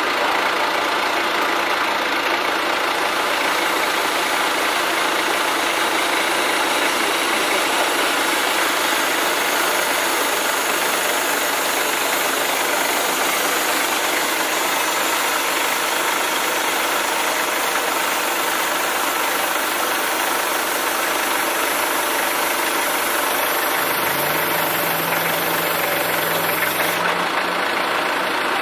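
A vehicle engine running steadily under a constant, even hiss-like noise. A low hum joins about 24 seconds in and fades near the end.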